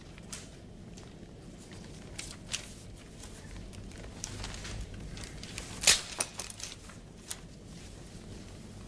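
Sheets of paper rustling and scattered small clicks and taps in a quiet room, with one sharper tap about six seconds in.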